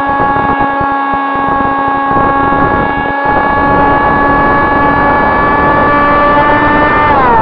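Electric motor and propeller of a Sonicmodell AR Wing RC flying wing heard from its onboard camera: a steady whine that creeps slightly up in pitch, then drops sharply about seven seconds in as the throttle comes back. There is a rough wind rumble on the microphone underneath.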